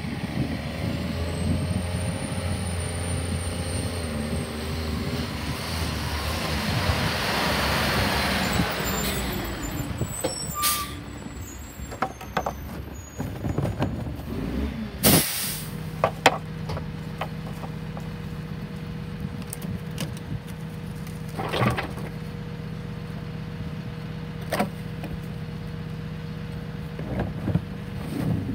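Rear-loader garbage truck approaching and passing close, its engine and tyres loudest about eight seconds in, followed by a short hiss of air brakes. From about halfway on the truck's engine runs steadily at the curb, with a few sharp knocks and bangs as trash carts are handled at the hopper.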